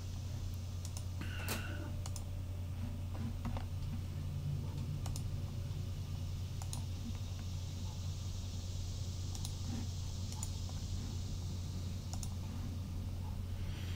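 Scattered, irregular clicks of a computer mouse and keyboard over a steady low hum.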